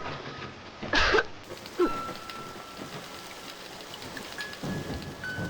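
Rain sound effect, steady heavy rainfall, with a loud sudden impact about a second in.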